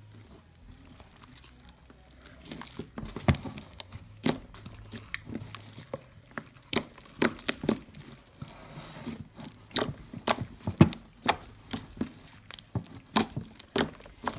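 Homemade slime being squeezed and stretched by hand, giving off irregular sticky clicks and pops that come much more often in the second half.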